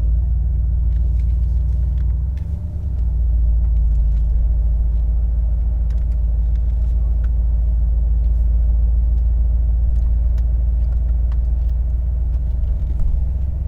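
Mercedes-AMG SL 63's 4.0-litre twin-turbo V8 running as the car drives off in Sport Plus mode: a steady deep rumble that dips briefly about two to three seconds in.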